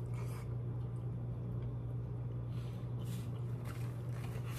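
Soft, wet chewing and food-handling sounds of someone eating shrimp, a few faint squishes, over a steady low hum.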